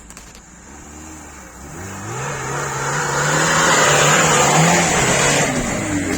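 Niva 4x4's engine revving up and running hard. Its note climbs and grows loud over the first few seconds, then holds high and steady.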